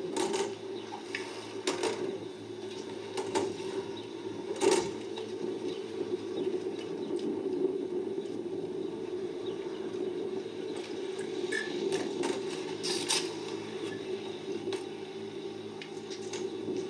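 BMX bike knocking and clattering against a wooden quarter pipe and its metal coping: a handful of sharp knocks, the loudest about five seconds in, over a steady low hum.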